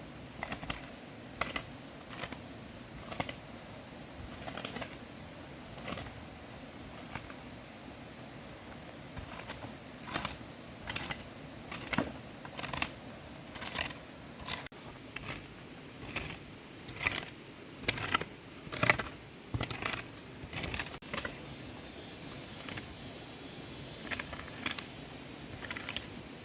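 Irregular sharp clicks and knocks, roughly one every second or two, coming thicker and louder past the middle. Under them is a thin steady high-pitched whine that stops about two thirds of the way through.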